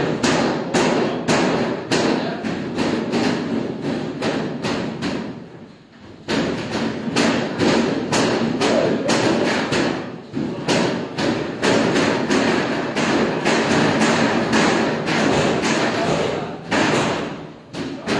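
Noodle dough being slapped and banged against stainless steel worktables during hand-pulling, a rapid run of thuds about three a second from several people at once, with a short lull about six seconds in.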